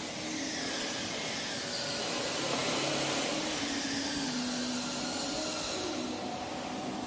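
Electric air blower running steadily to keep an inflatable PVC water slide inflated: a constant whooshing whirr with a faint hum whose pitch drifts slightly.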